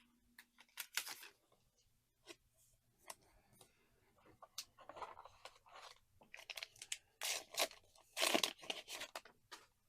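Trading cards and their packaging handled at close range: irregular crisp rustles, crinkles and snaps, busiest and loudest near the end.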